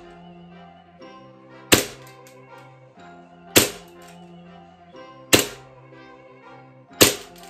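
Green gas BB pistol firing four single shots, one about every 1.8 seconds, each a sharp crack, over background music.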